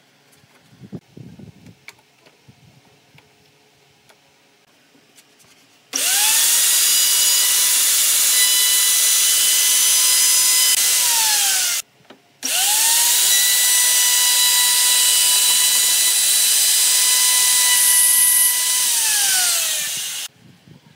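Dong Cheng plunge router cutting along the edge of a wooden board, in two runs with a short pause between them. Each time the motor spins up with a rising whine, holds a steady high whine under a loud hiss of cutting, then winds down with a falling pitch. A few light knocks come before the router starts.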